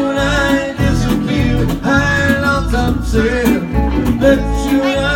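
Live country song: a man singing with his own acoustic guitar, in long held, wavering notes over the chords.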